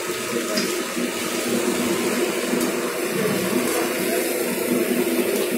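Egg and oil sizzling steadily on a hot flat iron tawa while a spoon spreads the egg over a paratha.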